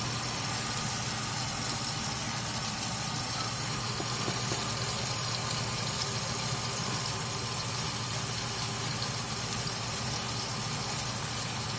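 Small savory pancakes sizzling steadily in hot oil in a nonstick frying pan, with a few faint crackles and a steady low hum underneath.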